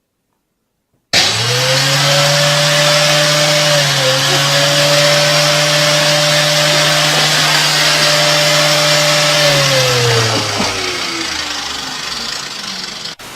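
An electric motor switches on suddenly and runs at a steady high whir with a loud hiss, then is switched off and spins down, its pitch falling, near the end.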